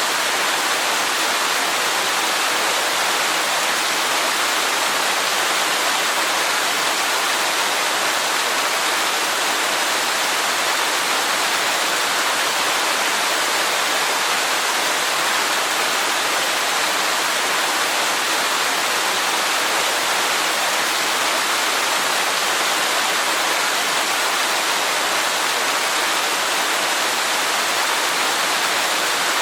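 Waterfall: a steady, unchanging rush of falling water, mostly hiss with little deep rumble.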